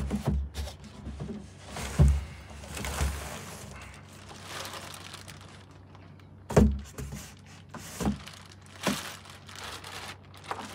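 Plastic wrapping crinkling and rustling around a saxophone hard case as it is handled, with several dull thumps from the case and cardboard packing, the loudest about two seconds in and again just past halfway.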